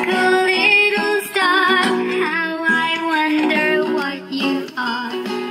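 Children's nursery-rhyme song with a woman singing over instrumental backing, playing loudly from a small portable wireless speaker fed from a USB flash drive.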